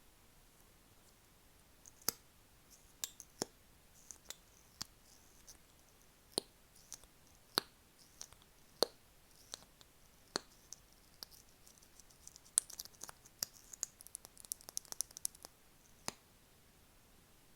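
Sharp close-up clicks, about one a second, then a quick flurry of small clicks near the end.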